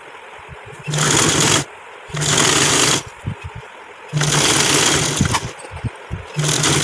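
Sewing machine running in four short spurts of about a second each, with brief pauses between, as a seam is stitched through two layers of fabric.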